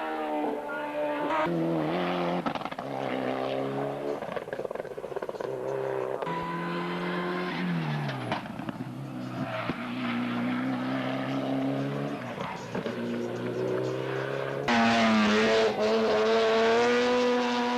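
Race car engine revving hard up the gears, climbing in pitch and dropping back several times as it changes gear. About fifteen seconds in, a louder engine at a different pitch takes over.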